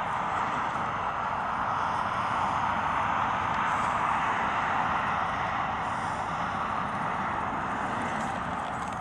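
Steady rushing background noise, like distant engine or traffic noise, swelling a little about halfway through and easing toward the end.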